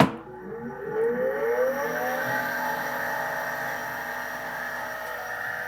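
Small auxiliary electric fan switched on with a click, its motor whine rising in pitch over the first two seconds as it spins up, then running steadily with a rush of air.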